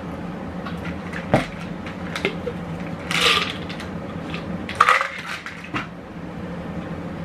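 Plastic cup and protein-powder tub handled on a kitchen table while making a protein shake: scattered clicks and knocks, with two short scraping, rustling noises about three and five seconds in, over a steady low hum.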